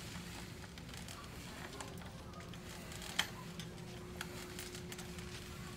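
A two-wheeled aluminium walker and slow steps on carpet: scattered soft taps and clicks as the walker is moved along, with one sharper click about three seconds in, over a steady low room hum.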